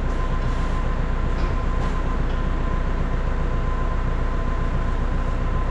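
Tractor engine running steadily, with a steady high whine over it.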